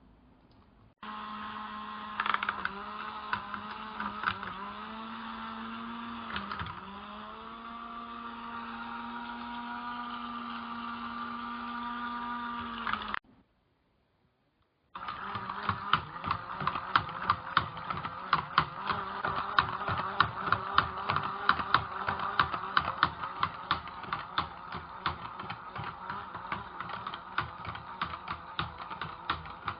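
A small electric motor running with a steady hum, its pitch sagging briefly a few times as if under load. After a short cut to silence it runs again with a fast, continuous rattling clatter.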